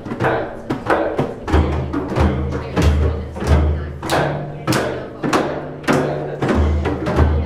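Frame drums played together at a steady pulse, about one and a half strokes a second. They go in groups of four: deep booming 'doom' strokes in the centre of the drumhead, then four sharp, light 'tek' strokes with the fingers on the drum's edge, then 'dooms' again near the end.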